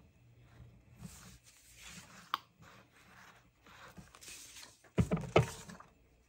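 Soft rustling and scraping of paper as glue is squeezed in lines onto a journal page, with a single sharp click a little past two seconds. Two loud knocks come close together about five seconds in.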